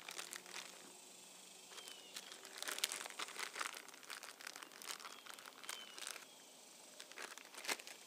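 Faint, irregular crinkling of a clear plastic seal-kit bag handled in gloved hands as small O-rings are taken out, with scattered light clicks.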